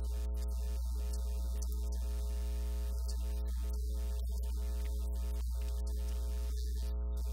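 Steady electrical mains hum with a buzzing stack of overtones, unchanging throughout.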